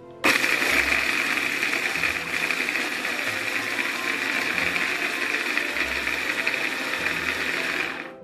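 Electric kitchen blender running at a steady high speed: it starts suddenly and cuts off sharply after about eight seconds.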